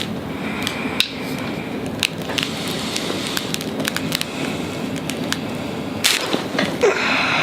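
Spine joints popping during a chiropractic adjustment: scattered sharp cracks, with the loudest pair close together near the end.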